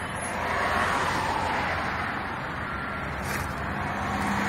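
Motor vehicle noise: a steady low engine hum with road noise that swells about a second in.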